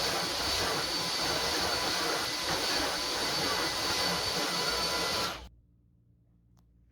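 Philips SpeedPro 8043 cordless stick vacuum running steadily with a thin high whine over its airflow noise, then cutting off abruptly about five seconds in.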